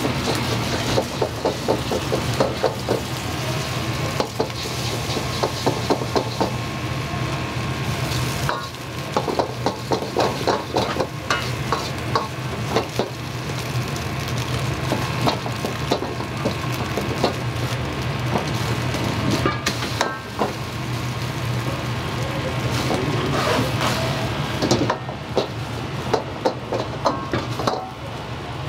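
Food sizzling in a wok, with a metal ladle knocking and scraping against the wok many times in quick irregular strokes, over a steady low hum.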